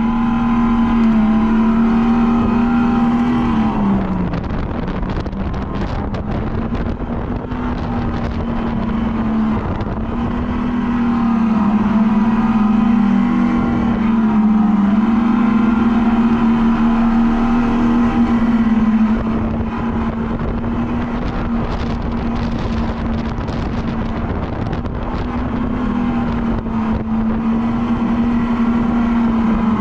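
Electric go-kart's motor whining at a steady pitch from the driver's seat, dropping in pitch briefly a few times as the kart slows and then picking back up, over a steady rushing noise.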